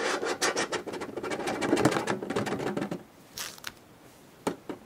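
Plastic blister packaging of trading-card booster packs crinkling and crackling as it is handled and pulled open: a dense run of crackles for about three seconds, then a few separate clicks.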